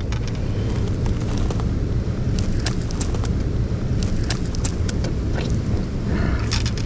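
Steady low rumble of wind buffeting the microphone, with scattered light clicks and ticks on top.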